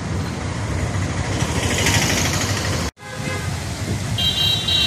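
Outdoor road traffic noise, a steady low rumble with a brighter hiss swelling about two seconds in. It drops out abruptly for an instant just under three seconds in at an edit, and a brief high tone sounds near the end.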